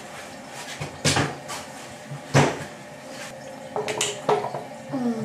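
Household knocks and clatter indoors: two sharp knocks about a second and two and a half seconds in, then a few lighter clicks.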